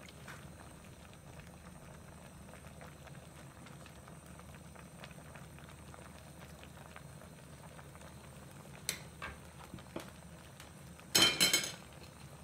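Seafood hot pot broth in a clay donabe pot bubbling faintly over the heat, with small pops and ticks. A short clatter about 11 seconds in.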